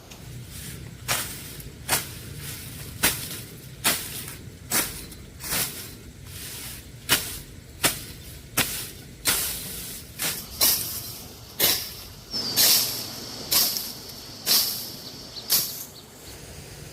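Rhythmic scraping or swishing strokes, about one a second, each a short hiss with a sharp onset; a few strokes near the end are longer.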